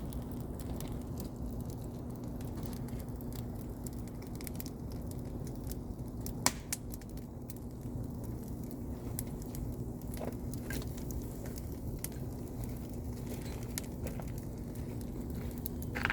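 Campfire of damp wood burning with scattered crackles and small pops, and one louder sharp snap about six seconds in.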